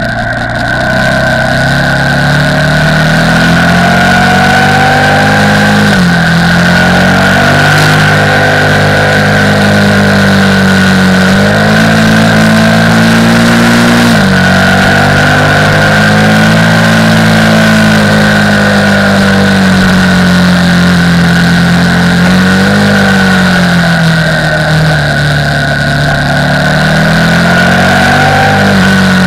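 KTM 990 Supermoto R's LC8 V-twin engine running under way, its revs climbing and then falling away sharply several times as it goes through the gears. A steady high whine sits over it.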